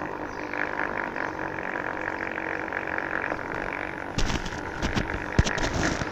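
DIY Onewheel's electric hub motor whining steadily while riding. From about four seconds in, several sharp knocks and a low rumble come in.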